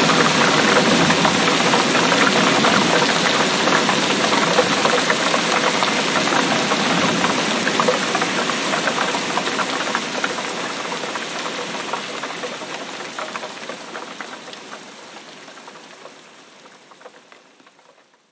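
Heavy rain falling in a dense, steady patter that fades out gradually over the last several seconds to silence.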